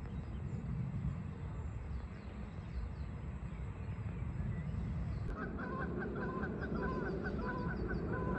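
Geese honking repeatedly, about two honks a second, starting a little past halfway through. Before that only a low rumble and faint small-bird chirps.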